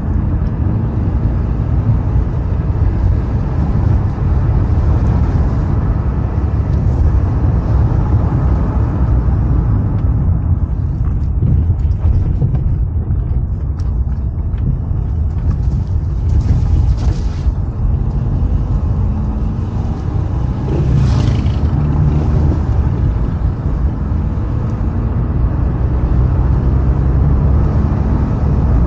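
Car driving on a road: a steady low rumble of engine and tyre noise, with two brief hissing swells partway through.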